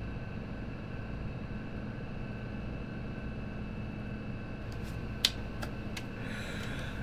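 Steady mechanical hum with a low drone and faint steady whine tones, broken by one sharp click a little past five seconds in.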